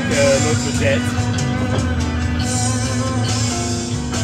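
Background music: a rock-style track with guitar.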